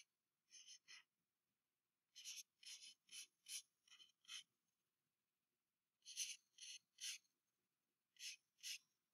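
Faint scratching of a stylus writing on a tablet: several clusters of short pen strokes with brief pauses between them, as terms are written into a multiplication grid.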